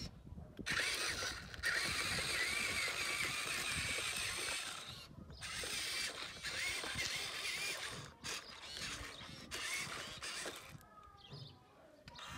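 Electric motors and gearboxes of a Huina radio-controlled excavator whirring with a wavering whine, in spells that stop briefly a few times as the controls are let go.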